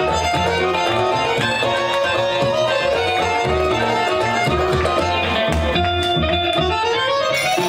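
Live band playing dance music: plucked string melody over a steady hand-drum and drum-kit beat.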